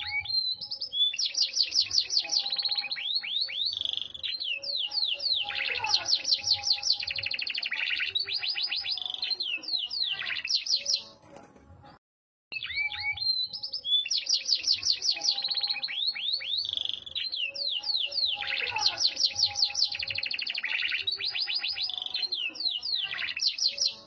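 Yorkshire canary singing a long song of rapid high trills and rolling phrases, each trill a fast run of repeated notes. The song breaks off for about a second near the middle, then starts again.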